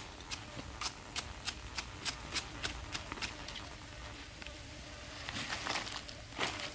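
Wooden stick used as a pestle pounding food in a small bowl, about three sharp knocks a second for the first three seconds. Near the end, leaves rustle.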